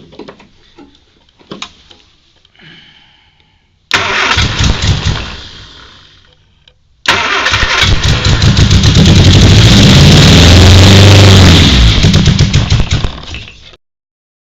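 Triumph Spitfire four-cylinder engine starting on gasoline through freshly rebuilt carburettors: about four seconds in it bursts into life briefly and dies away, then about seven seconds in it catches and runs, revs rising and falling, before fading out near the end. It is running on hand-fed fuel, its first run through the carbs in years.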